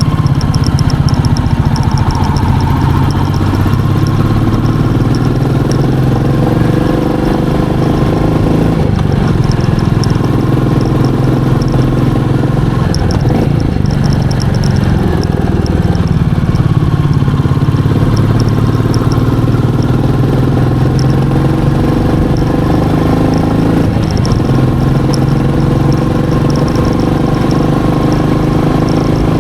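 Royal Enfield Meteor 350's single-cylinder engine and exhaust running while the bike is ridden, the engine note rising and falling with the throttle.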